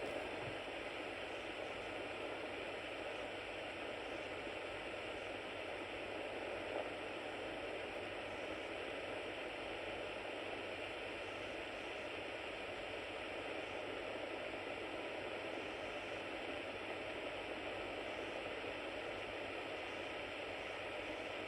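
Cassette tape playing back with only a steady hiss and no data tones: the copy made through the duplicator has nothing recorded on it.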